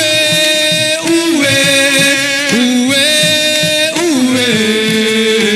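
Music: long held melodic notes that waver and glide in pitch, over a low pulsing beat, with no words yet.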